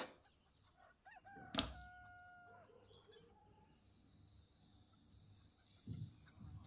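A rooster crows once, about a second in, with a sharp knock at the start of the call. From about four seconds a faint sizzle begins as butter lands in a hot frying pan, with a soft thump near the end.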